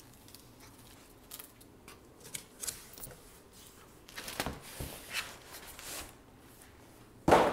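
Cardboard box and plastic packaging of a racing seat being opened and handled: scattered light rustling and scraping, then one loud thump near the end.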